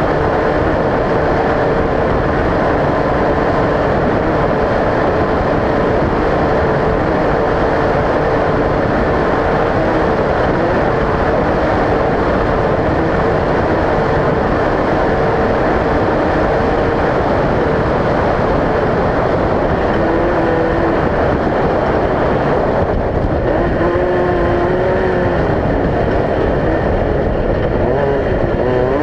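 Off-road race vehicle's engine running hard under a loud, steady rushing noise, its pitch wavering and gliding in the last few seconds.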